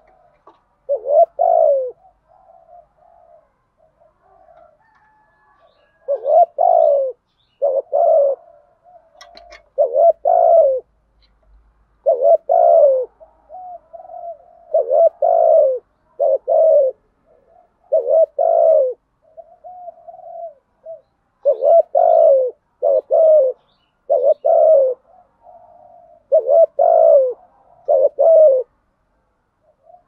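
Spotted dove cooing in the rapid 'gù' pattern that decoy birds use to draw in wild doves. One coo phrase comes about a second in, then a steady run of short, loud coos every second or two from about six seconds in, with softer coos between them.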